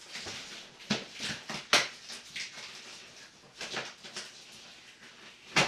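Large cardboard shipping box and its packing being handled: a series of short scrapes and rustles with a few sharp knocks, the loudest about two seconds in and again near the end.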